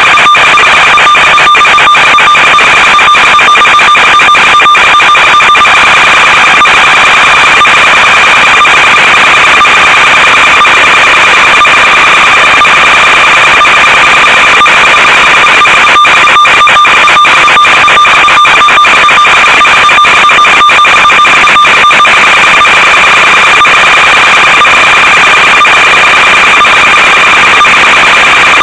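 Loud, steady electronic buzz and hiss from an analog FPV video link's audio channel, with two steady tones, one an octave above the other, running through it. There are stretches of rapid crackling dropouts near the start and again past the middle.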